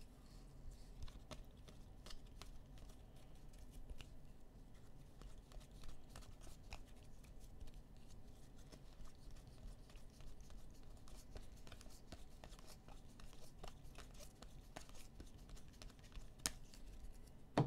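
Faint, irregular clicks and rustles of cardboard football trading cards being flipped through and slid against each other in the hands, one card after another.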